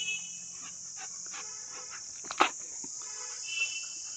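A dog barks once, sharply, about two and a half seconds in, with a few faint whimpering squeaks around it, over the steady chirring of crickets.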